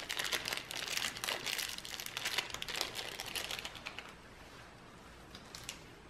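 Thin clear plastic bag being crumpled and handled by gloved hands, a dense irregular crinkling that stops about four seconds in, with a brief crinkle again near the end.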